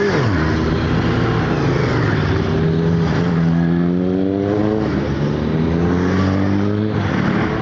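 Motorcycle engines as a line of bikes rides past one after another. The pitch drops sharply at the start as one bike passes close by, and rises again about three seconds in as another accelerates.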